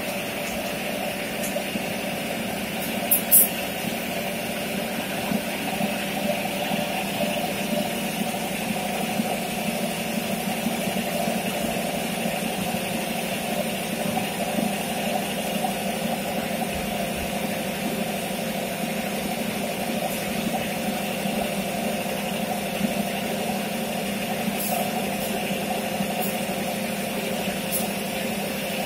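Two-head automatic servo liquid filling machine and its conveyor running with a steady mechanical hum. A few brief sharp sounds cut through, the loudest about three seconds in.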